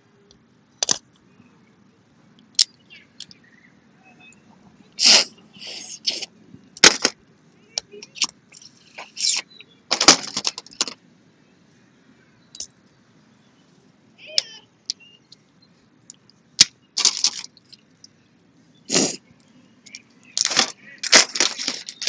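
Close-up sounds of eating boiled crawfish: irregular bursts of slurping and chewing, with cracks and snaps of shells being broken and peeled, heaviest about five, ten and twenty seconds in.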